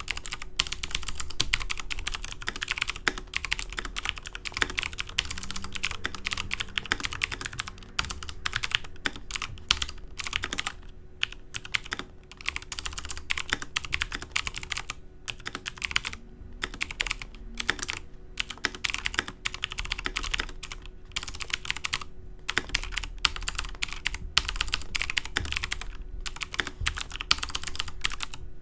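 XPG Summoner mechanical keyboard with Cherry MX Blue switches being typed on continuously: rapid, crisp clicky keystrokes with only a few short pauses.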